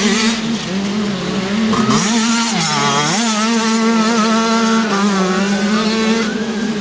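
Two-stroke brommercross (moped motocross) bike engine running at high revs, steady in pitch, dropping off briefly and climbing back about two to three seconds in as the throttle is eased and reopened.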